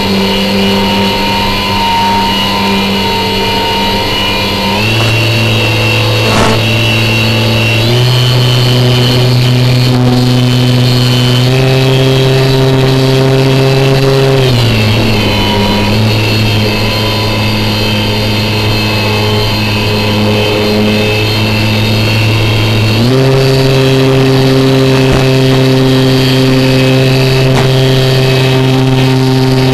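Electric motor and propeller of an FPV flying wing running steadily, its pitch stepping up and down with the throttle: several rises early on, a gliding drop about halfway through, and a rise again at about three-quarters.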